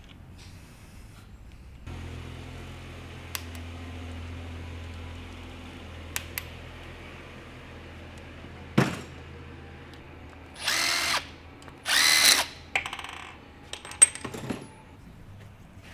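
Power tool run in two short bursts about a second apart, with scattered metal clicks and a knock, over a steady low hum.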